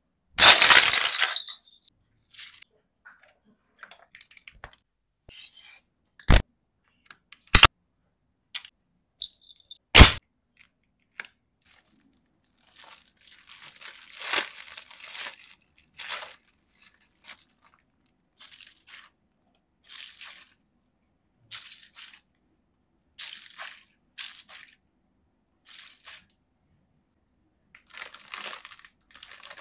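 Toys and plastic packaging being handled by hand, with no speech: a loud crunch just after the start, a few sharp snaps, then stretches of soft crinkling and squishing. Midway a gel-filled mesh squeeze ball is squeezed, and near the end a clear plastic bag holding a toy doll stroller is handled.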